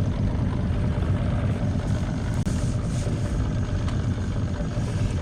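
Outboard motor of a small fishing boat idling with a steady low rumble.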